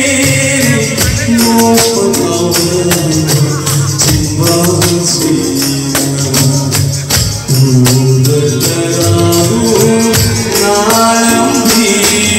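Male vocals sung into microphones over band accompaniment, with a steady jingling percussion beat.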